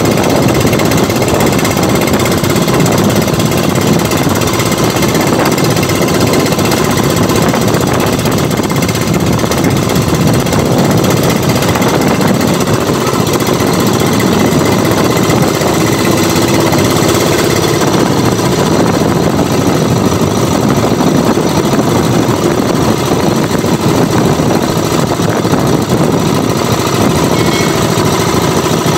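Small engine of a motorized outrigger boat (banca) running steadily, a loud, rapid, even pulsing of its firing strokes.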